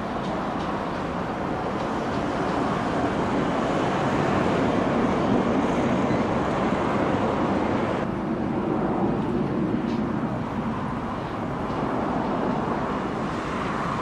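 Steady rumbling vehicle noise, swelling toward the middle and easing slightly after about eight seconds.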